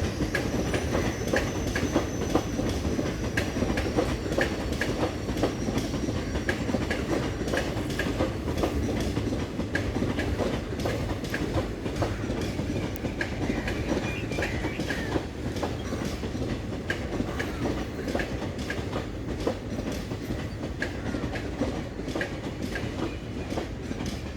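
Express passenger train rolling past, its wheels clicking again and again over the rail joints over a steady running rumble that slowly eases toward the end.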